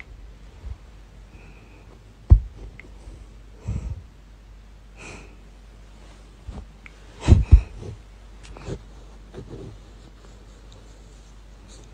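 A hairless cat under the bed covers making short snorts and sniffs every second or two, the loudest a quick double snort about seven seconds in.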